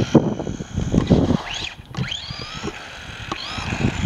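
Electric RC buggy driving on asphalt in throttle bursts: the brushless motor's whine glides up and down in pitch, one sharp rising whine a little before two seconds in, over rough rumbling tyre and drivetrain noise.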